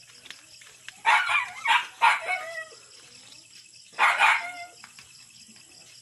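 A dog barking: three barks in quick succession about a second in, then another about four seconds in.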